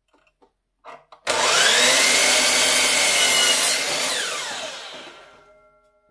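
Electric saw starting up with a rising whine and cutting through a wooden board, then the blade winding down with a falling whine over about two seconds once the cut is done.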